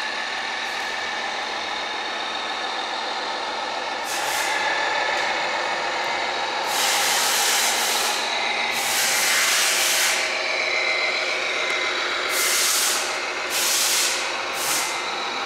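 Radio-controlled model trucks' sound modules playing air-brake hisses: about five sharp hiss bursts in the second half, over a steady motor hum with a faint whine.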